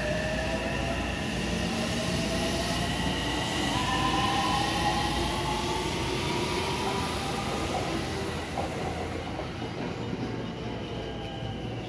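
JR West 223-series electric trains: one pulls away with its traction-motor inverter whine climbing in pitch as it accelerates, over wheel rumble on the rails. Near the end a second train runs in alongside, its motor whine falling as it brakes.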